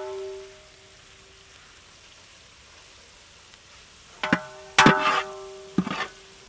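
Metal ladle clanking against the side of a large aluminium cooking pot, each knock ringing on. One knock right at the start fades within about a second, then three or four sharp clanks come close together about four to six seconds in.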